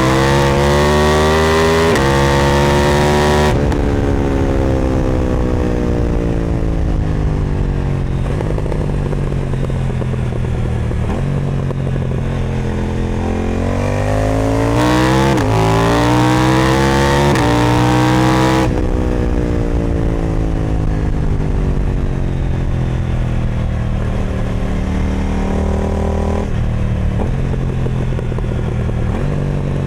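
KTM 990 Duke's parallel-twin engine through an Austin Racing aftermarket exhaust, riding hard. The revs climb through the gears with quick upshifts at the start, then fall away on the overrun with stepped downshifts. The bike pulls hard again about halfway through, then the rider backs off and the engine winds down with further downshifts.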